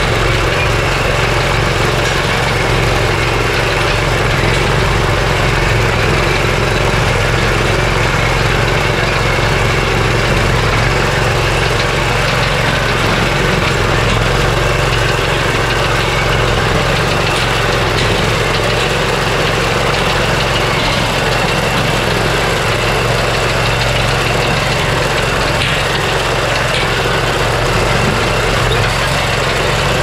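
Small air-cooled gasoline engine on a horse-drawn corn binder, running steadily as it drives the binder's cutting and tying mechanism.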